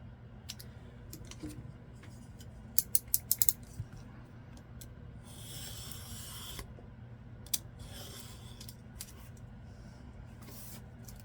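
Scrapbook paper being cut on a paper trimmer: a quick run of sharp clicks, then the blade drawn along the sheet in one long hissing swish, with fainter swishes after it.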